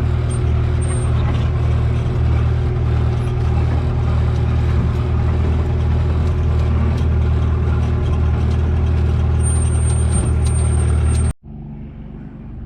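The Isuzu diesel engine of a Takeuchi TB45 mini excavator runs steadily and loudly while the machine works. Near the end the sound cuts off suddenly, leaving a much fainter low hum.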